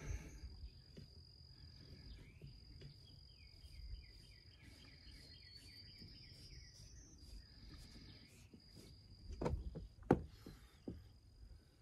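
Faint outdoor ambience of insects: a steady high-pitched buzz with a brief run of trilling chirps. Quiet handling rustle, with two soft knocks near the end.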